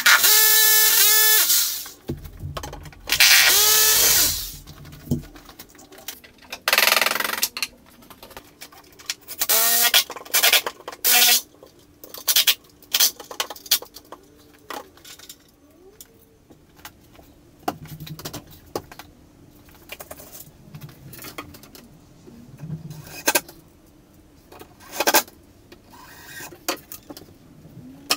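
Power drill-driver running in several short bursts, its pitch rising as it spins up, driving screws to fasten kitchen cabinet units together and to their wall brackets. Short knocks and clatter of parts being handled come in between.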